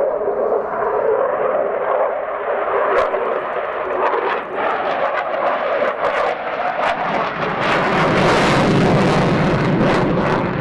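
Jet noise from a Sukhoi Su-27P's two AL-31F turbofan engines in flight. About seven seconds in it grows louder and fuller, with a crackle across the top.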